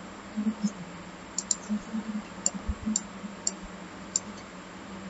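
Computer mouse buttons clicking, with a keyboard key pressed among them: about six short, sharp clicks at uneven intervals.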